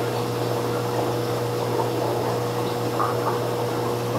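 Steady mechanical hum of aquarium pumps with water bubbling and trickling from the tanks' circulation and aeration.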